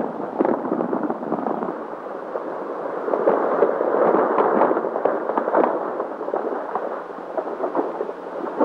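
A dense, irregular clatter of galloping horses' hoofbeats, with splashing, heard through a muffled old film soundtrack.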